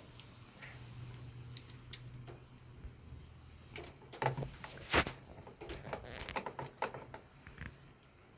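Metal hand tools clinking on the car battery's negative terminal clamp as it is loosened: scattered sharp clicks and knocks, the loudest about five seconds in, followed by a quick cluster of lighter clicks.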